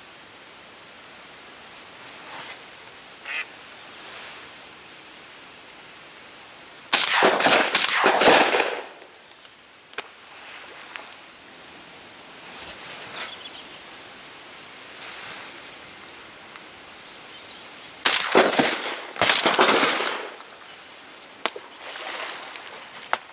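Shotgun shots in two pairs, the first pair about 7 seconds in and the second about 18 seconds in, each shot sudden and loud and dying away over about a second. Ducks quack now and then between the shots.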